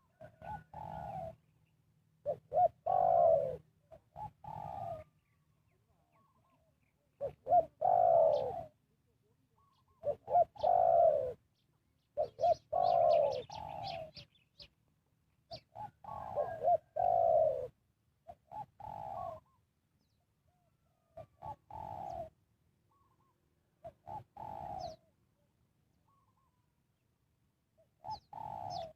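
Spotted dove cooing: repeated phrases of low, rounded coos, each phrase a few notes long, with pauses of a second or more between phrases. Faint high chirps of a small bird come in briefly about halfway through.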